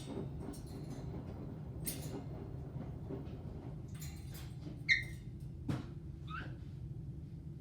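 Caique parrot giving a few short, sharp squeaks and chirps, the loudest about five seconds in, among scattered clicks and rustles over a steady low hum.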